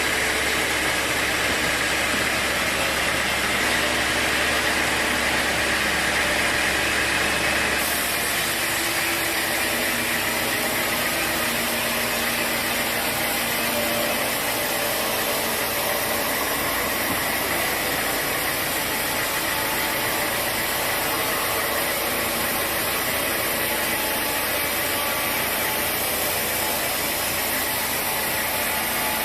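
Sawmill machinery running steadily, a mix of engine-like hum and hiss; the sound changes about eight seconds in, the upper hiss shifting as the middle band weakens.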